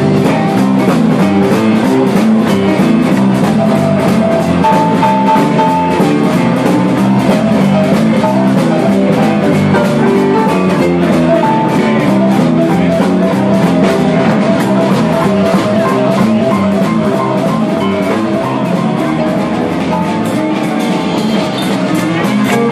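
Live swing band playing an instrumental passage: electric guitar, keyboard and drum kit, with a fast, even cymbal beat running through.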